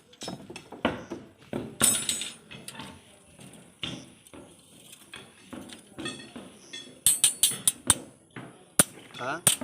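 Steel reinforcing bars knocking and clinking as they are handled during beam building. The knocks come irregularly, then fall into a quick dense run near the end.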